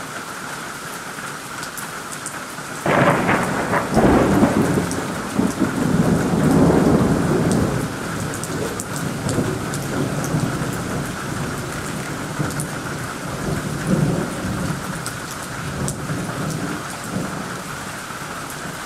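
Heavy rain falls steadily on foliage. About three seconds in a sudden clap of thunder breaks in and rolls on as a long low rumble, easing off with one more swell later.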